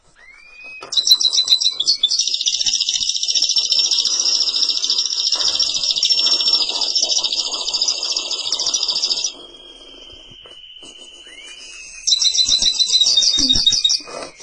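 Canary singing: a long, loud song of fast rolling trills lasting about eight seconds, then a quieter steady whistled note, then a second short burst of trills near the end.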